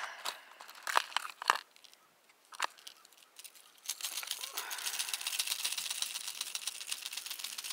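A few sharp clicks of a clear plastic Plano 3600 tackle-box compartment and hard-plastic lures being picked out. From about four seconds in comes a dense, rapid rattling and crinkling as jerkbaits with snagged treble hooks are worked apart.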